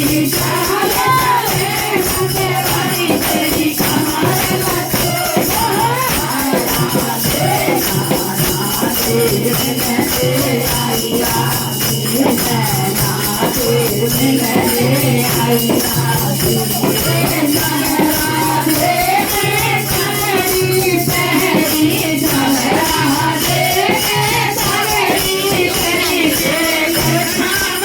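Indian folk-style rasiya music with a steady rhythm and a wavering melody line.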